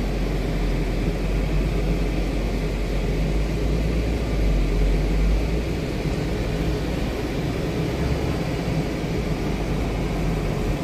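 Steady low rumble of a car's running engine heard from inside the cabin, with an even hiss over it.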